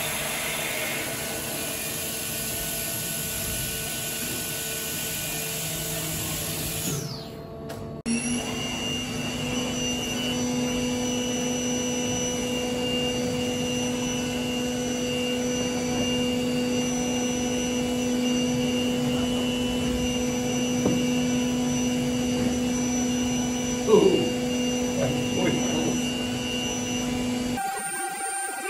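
CNC machining centre milling stainless steel with a four-flute WIDIA WCE4 solid carbide end mill: a steady high-speed spindle and cutting whine. The sound cuts about eight seconds in and picks up again with a steadier hum, and a short wavering squeal stands out about three-quarters of the way through.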